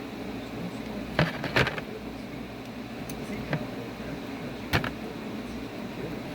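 A few short clicks and knocks of small parts and tools being handled during chainsaw disassembly, four in all, the loudest about a second and a half in and near three quarters of the way through, over a steady background hum.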